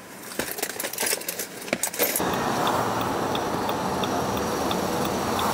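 Keys jangling and clicking for about two seconds, then a diesel car engine starts and runs steadily, with a light regular ticking on top.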